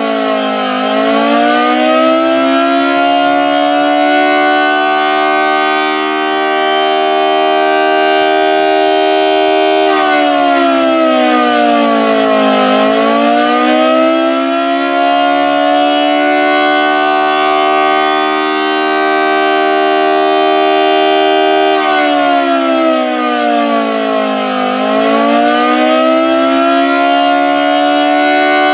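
Federal Model 2T two-tone civil defense siren sounding continuously. Its pitch sags and climbs back three times, about twelve seconds apart, holding a steady note for several seconds between the dips.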